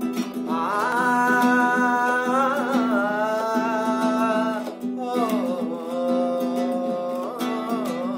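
A man singing two long held, wavering notes without clear words over a strummed nylon-string classical guitar; the first note runs from about half a second in to nearly five seconds, the second follows straight after.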